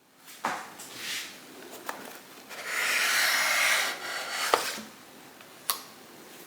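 Handling noise: a few light knocks and clicks, with a rubbing, sliding sound from about two and a half to four seconds in.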